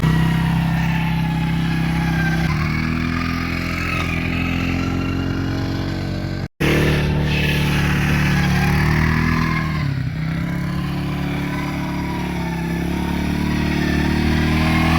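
Quad bike engine running under changing throttle, its pitch rising and falling, with a higher whine that moves along with it. The sound cuts out abruptly for a moment about six and a half seconds in.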